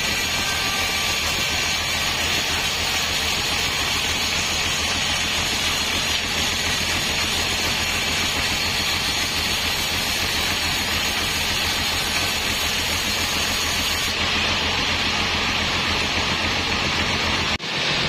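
Sawmill bandsaw running and cutting lengthwise through a teak log: a steady hiss of the blade in the wood over the machine's low hum, with a momentary dip near the end.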